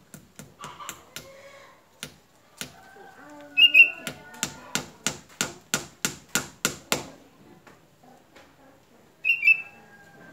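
Hammer blows knocking fastenings into a mango tree trunk to hold mounted orchids tighter. A few scattered knocks come first, then a quick even run of about a dozen at roughly four a second, which stops about seven seconds in.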